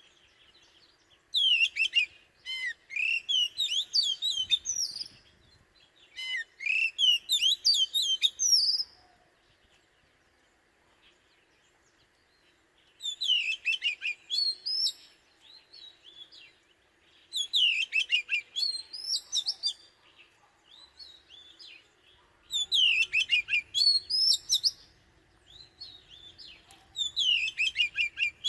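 Oriental magpie-robin singing: six bursts of rapid, varied whistled phrases, a few seconds apart.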